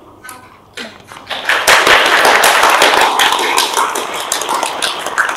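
A class of students applauding with a dense clatter of hand claps, which starts about a second in and stays loud.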